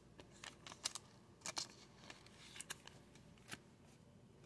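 Faint, scattered clicks and light rustles of trading cards being handled and set down, about half a dozen small sounds.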